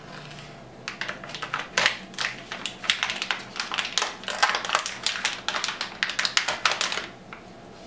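Shiny foil packaging bag crinkling and crackling as it is opened by hand: a rapid run of crackles starting about a second in and stopping about a second before the end.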